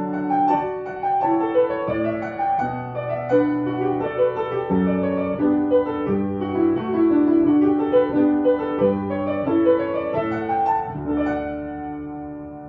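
Solo piano playing a slow melody over chords, fading out near the end.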